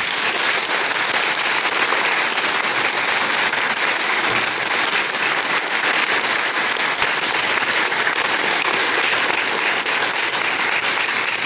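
Audience applauding: dense, steady clapping from a large crowd that holds for the whole stretch and only starts to thin just after.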